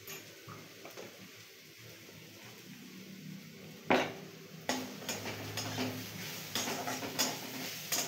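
Steel spatula knocking and scraping against a steel kadai as grated cabbage is stirred over the flame, with a faint sizzle in the quieter first half. There is a sharp knock about four seconds in, then a run of scrapes and clinks.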